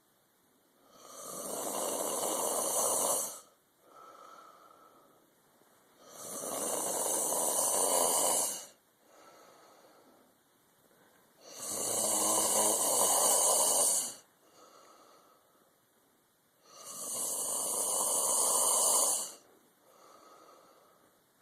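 A man snoring in a steady rhythm: four long, rasping snores of about two seconds each, roughly every five seconds, with a softer, shorter breath in each gap.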